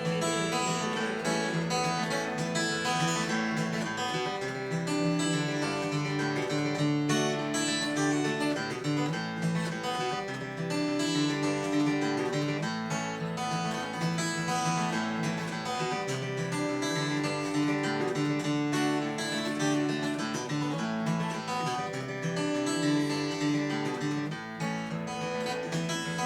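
Acoustic guitar playing an instrumental break in a country-folk song, with no singing.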